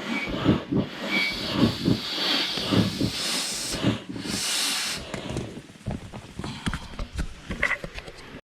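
Air pump inflating a Sea Eagle inflatable boat: air hisses in a quick rhythm of about two strokes a second, going quieter over the last few seconds.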